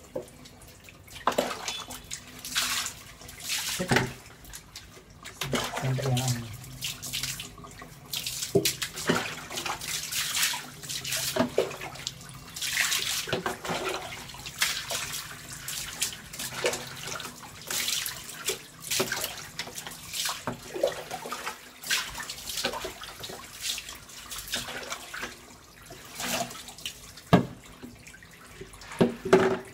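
Water scooped from a plastic bucket with a mug and poured over a dog's wet coat, in repeated irregular splashes while the dog is rinsed during its bath.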